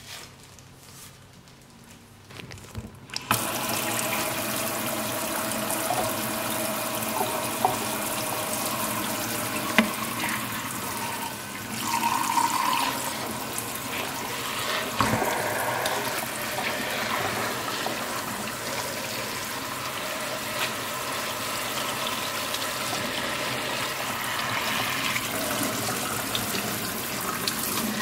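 A kitchen tap comes on about three seconds in, then runs steadily into a stainless steel sink over a whole redfish that gloved hands are rinsing clean. A few small knocks come from handling the fish in the sink.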